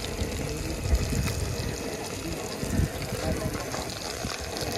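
Small fish frying in a steel pan of hot oil on a gas burner, a steady sizzle, with a fluctuating low rumble of wind on the microphone underneath.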